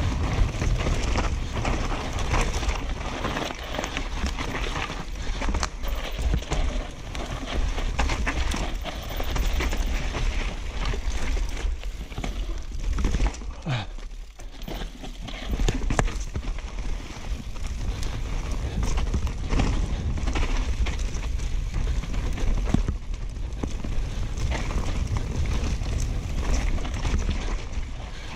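Downhill mountain bike ridden fast down a dirt forest trail: constant rattle and clatter of the bike and its tyres over roots and stones, with a steady low wind rumble on the microphone. The noise drops away briefly about halfway through.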